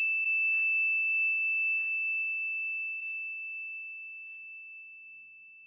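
A high metallic bell-like chime, struck once just before, rings on as one clear tone and slowly fades away. A few faint light taps sound under it, about one every second.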